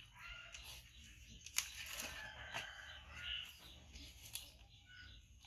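Faint short clucking calls of chickens in the background, with a few sharp clicks.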